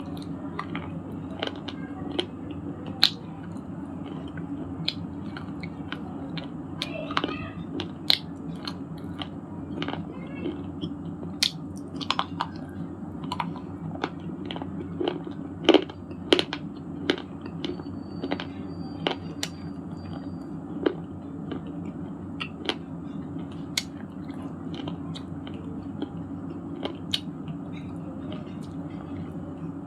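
Broken pieces of shale stone being bitten and chewed: a long run of sharp, irregular crunches, a few of them much louder, over a steady low background hum.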